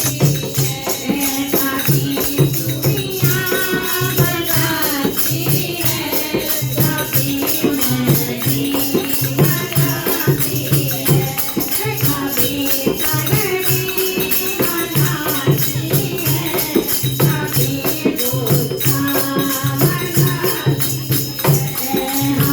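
Devotional Hindi bhajan music: a wavering melody line over a steady, fast rhythm of shaken percussion.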